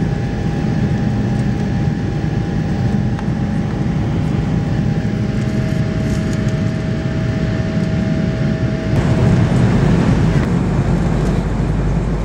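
Airbus A330-200 cabin noise in flight: a steady low roar of engines and airflow with a faint steady whine over it. About nine seconds in the sound shifts abruptly and gets a little louder.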